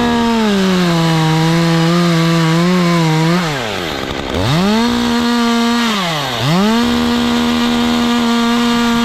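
Chainsaw revved to full speed, its pitch sagging for about three seconds as it bites into the wood, then let back to idle about three and a half seconds in and revved up twice more, holding steady at full speed.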